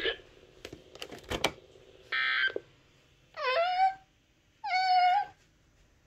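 A few light clicks, a short buzzy burst, then a cat meowing twice, about a second apart: the first call rises in pitch, the second is held level.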